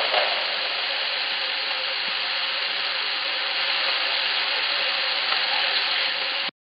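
Steady hiss of an amplified digital voice-recorder recording, squeezed into a narrow band, with faint steady hum tones under it. It cuts off suddenly near the end.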